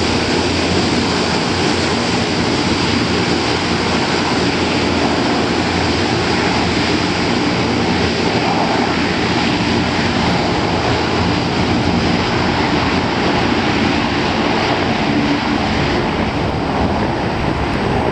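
Antonov An-12's four Ivchenko AI-20 turboprop engines running as the aircraft taxis past and away: loud, steady engine and propeller noise with a low drone, the higher part thinning a little near the end as it moves off.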